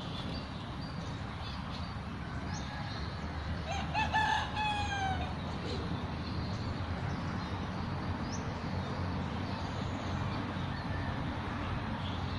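A rooster crows once near the middle, a single call of about a second and a half that rises briefly and then falls in pitch, over a steady low background hiss.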